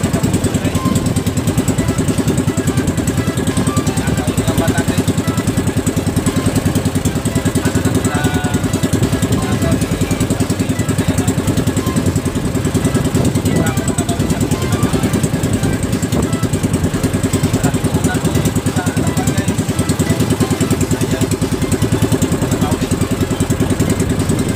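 Engine of a small motorized fishing boat running steadily under way, a fast even pulsing that holds at one speed.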